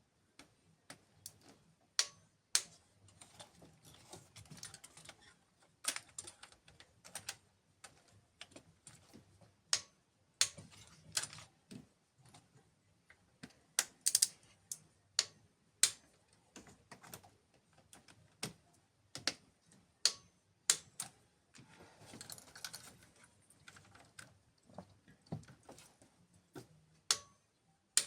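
Irregular sharp clicks and light knocks, as of hand tools and small parts being handled and set down during work on the engine, coming a few at a time with short gaps between them.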